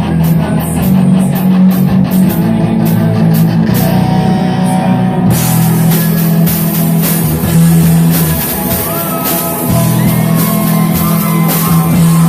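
Rock band playing: electric guitar with a few bent notes over a drum kit, the cymbals growing louder and brighter about five seconds in.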